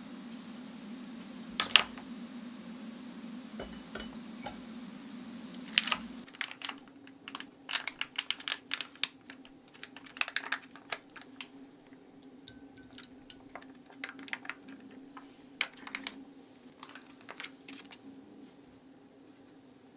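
Hands handling plastic food packaging: many light clicks, taps and crinkles in an irregular run. Over the first six seconds a low steady hum, broken by two sharp clicks, comes before the handling sounds.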